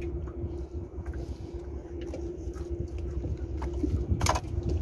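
An engine running steadily, a low rumble with a constant hum over it, with a few small knocks and one short, sharp scraping burst about four seconds in as fish are handled on the boat's deck.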